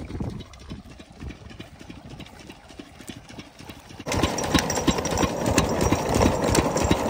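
Stationary diesel engine running a belt-driven irrigation water pump, chugging steadily with rapid even exhaust beats. About four seconds in the sound becomes suddenly much louder and closer, with the clatter of the flat belt and pump added to the beats.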